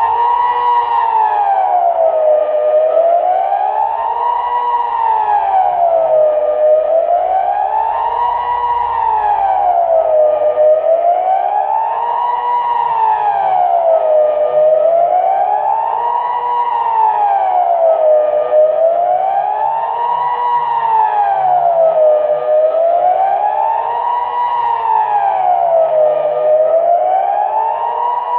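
Kockum Sonics Delta civil-defence siren sounding a steady wail, its pitch rising and falling smoothly about once every four seconds: the Swiss general alarm signal, sounded for the siren test.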